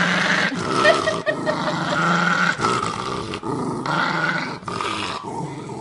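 A West Highland white terrier growling with its teeth bared, a loud string of growls of about a second each, one after another.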